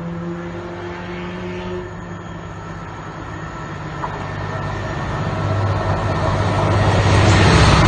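Diesel locomotive at the head of a passenger charter train approaching. Its steady low engine hum grows louder as it nears.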